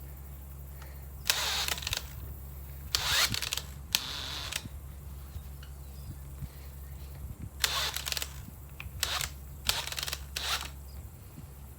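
Power drill turning a round screwdriver wedged under a bandsaw wheel tire, run in about seven short bursts with pauses between. Its clutch slips and ratchets under the load because it is set too low.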